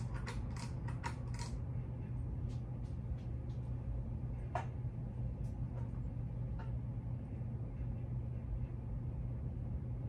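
Hampton Bay Tiffany Sonoma ceiling fan running on medium speed with a steady motor hum. Clicks from the pull-chain switch and the swinging chain come in the first second and a half, and a few single light clicks follow later.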